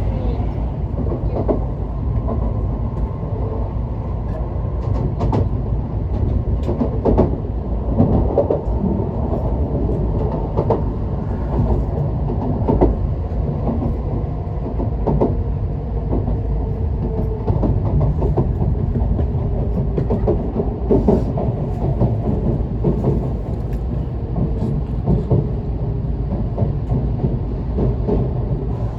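Tokaido Shinkansen train running, heard from inside the passenger car: a steady low rumble from the wheels and running gear, with irregular short knocks over it.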